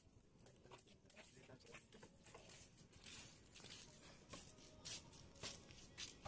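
Faint rustling and crackling with scattered small clicks, growing busier and a little louder in the second half.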